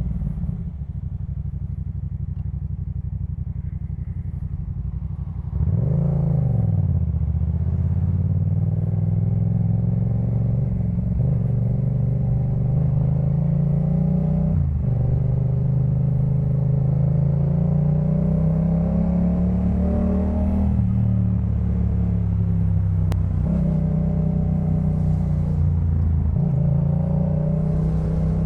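Yamaha MT-07's parallel-twin engine through a Jeskap K4 full exhaust, running low and steady at first. About five seconds in it suddenly gets louder with a quick rev blip, then the revs climb in long rises, dropping sharply at each upshift.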